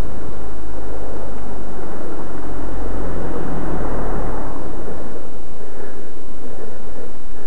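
Loud, steady wind rush on the microphone of a moving camera, with a low rumble underneath. The noise swells between about two and four and a half seconds in as an oncoming car passes.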